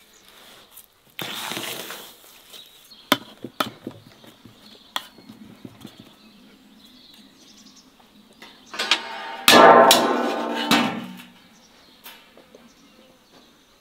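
A metal spoon scraping and tapping against an enamel basin as damp bulgur dough is pressed and worked, with a scrape about a second in and a few sharp clicks after. About nine seconds in, a loud pitched call lasting about two seconds.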